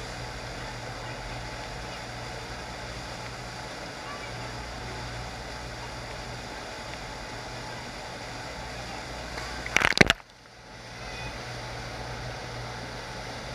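Steady rushing of water pumped over a FlowRider sheet-wave surf machine. About ten seconds in comes a sudden loud burst of noise, after which the rush drops away and builds back up over a second or so.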